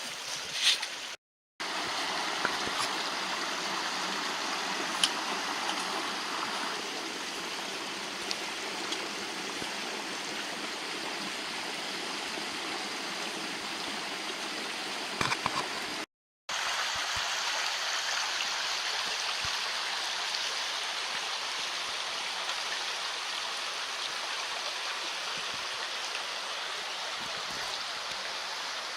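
Steady rush of running water from a stream or waterfall. It drops out to silence twice, briefly, about a second in and just past the middle.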